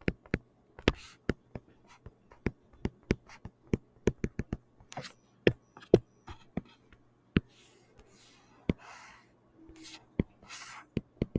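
Stylus writing and drawing on a touchscreen: many sharp taps of the pen tip with brief scratchy strokes in the second half as lines are drawn.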